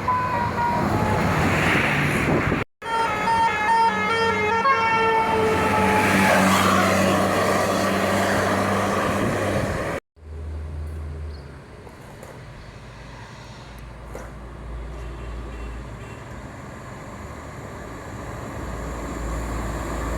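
Basuri telolet bus horn playing a quick melody of stepped, held notes over loud background noise. After a sudden cut about halfway through, a bus engine's low rumble follows, growing a little toward the end.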